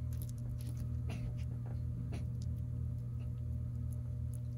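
Grease being worked by hand into a car's front wheel bearing: scattered soft, sticky clicks and smacks of fingers and grease against the bearing, over a steady low hum.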